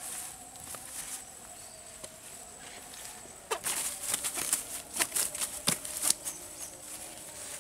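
A freshly caught catfish flopping and slapping on grass and a plastic bag as it is unhooked. The result is a quick, irregular run of slaps and rustles lasting about three seconds, starting around the middle.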